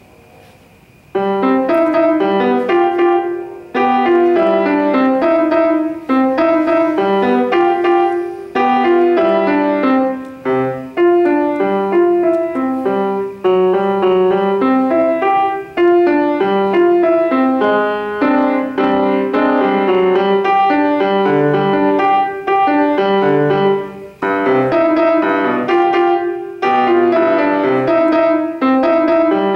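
Grand piano played by a young student, starting about a second in: a simple piece in short phrases of separate notes and chords, with brief breaks between phrases.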